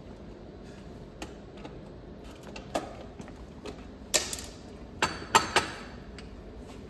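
Hand tools clicking and clanking against a bicycle's rear wheel as it is worked loose. A scattering of sharp clicks, with the loudest cluster of four coming about four to five and a half seconds in.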